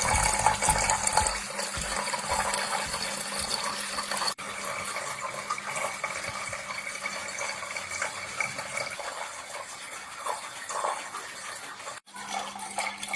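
Water pouring and splashing steadily down a small homemade cement waterfall, with a faint steady hum underneath. The sound breaks off for an instant twice.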